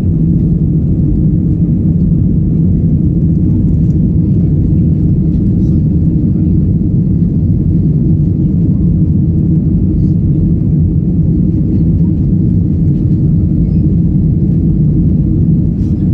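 Passenger aircraft engines running with a steady, loud low rumble that holds level throughout.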